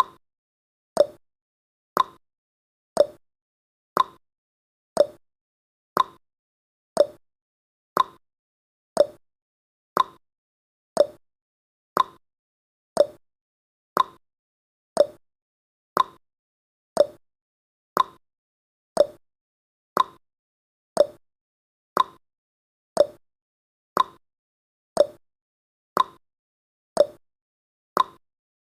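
Countdown timer sound effect: one short tick every second, steady and evenly spaced.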